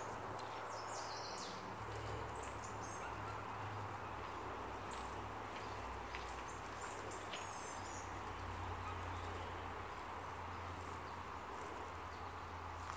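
Outdoor ambience: a steady hiss with a low rumble, and a few short bird chirps, one around the first couple of seconds and another about halfway through.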